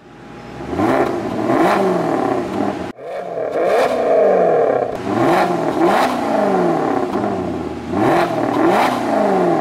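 Maserati GranTurismo MC's 4.7-litre V8 revved in quick throttle blips, the pitch of the exhaust rising and falling sharply, mostly in pairs. There is a sudden break about three seconds in.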